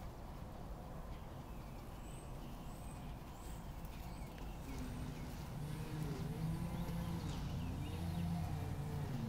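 Outdoor ambience: a low steady hum that grows stronger about halfway through, with a few faint high bird chirps early on.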